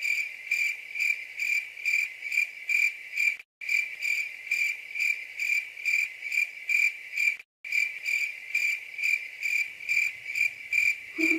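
Cricket chirping sound effect: a high chirp pulsing a little over twice a second, looped, with two brief dead dropouts. It starts and cuts off abruptly.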